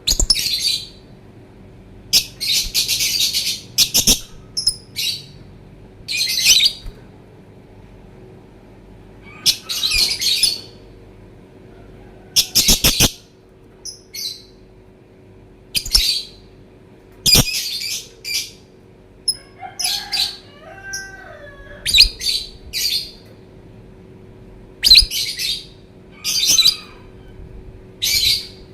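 Lovebird calling in repeated bursts of harsh, high chirping, some bursts brief and some drawn out to nearly two seconds, with short pauses between.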